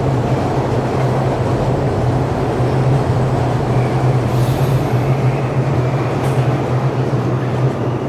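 Berlin U-Bahn train running past close by in a tunnel: a loud, steady rush of train noise over a low, steady hum.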